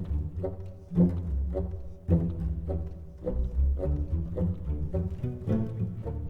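Instrumental background music with a low, heavy bass line and pitched notes, a new note or chord starting roughly once a second.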